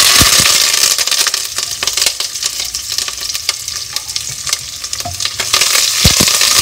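Chopped onion, garlic and curry leaves frying in hot oil with popped mustard seeds in a cast iron pan: a loud, steady sizzle as the pan is stirred, swelling again near the end, with a few sharp knocks against the pan.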